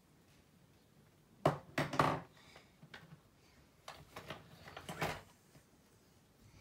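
Plastic make-up tubes and cases clattering and rustling as a hand rummages through a cosmetics bag, in two bursts of clicks and rattles: one about a second and a half in, another from about four to five seconds in.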